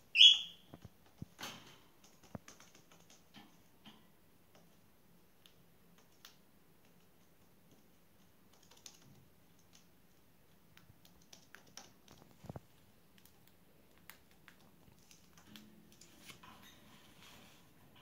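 Cinnamon cockatiel giving one short, sharp chirp right at the start, then scattered light clicks and taps as its claws and beak hit the tabletop and the cage's wire bars.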